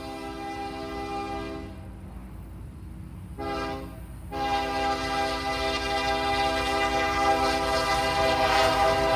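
Union Pacific diesel locomotive's chord air horn sounding the grade-crossing signal as the freight approaches. A long blast ends about two seconds in, a short blast follows, then a final long blast begins about halfway and is held, growing louder as the train nears, over the low rumble of the train.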